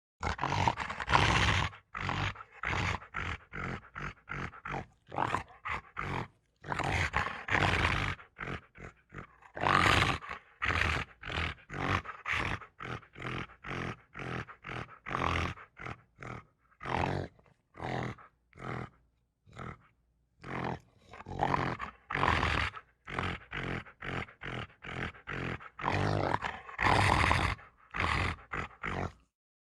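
Velociraptor creature sound effects: a rapid series of short animal-like calls and growls, several a second, with a few longer calls lasting about a second, each separated by brief silent gaps.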